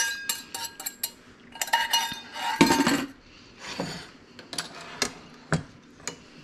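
A metal utensil clinking and scraping against a dish in a string of irregular clinks, some briefly ringing, as vinaigrette is emptied out over a salad.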